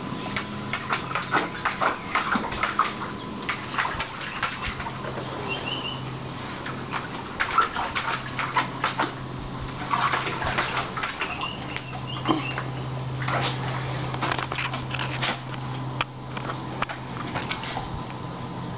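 A Staffordshire bull terrier paws and splashes in a shallow plastic paddling pool, making irregular slaps and splashes of water.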